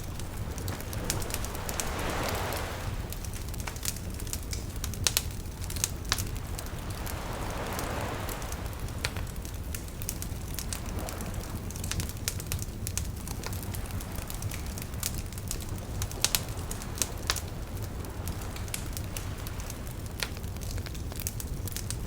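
Wood campfire crackling, with irregular sharp pops and snaps over a steady low rumble of burning. The loudest pops come about 5, 6 and 16 seconds in, and soft rushing swells come twice near the start.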